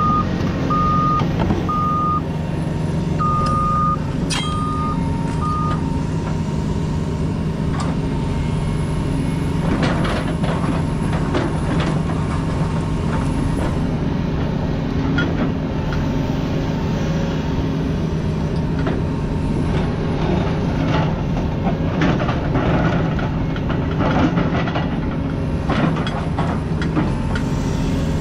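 CAT 336E excavator's diesel engine running steadily, with a warning beeper sounding over the first six seconds or so. From about ten seconds in come repeated clanks and scrapes as the rake attachment works through rocks.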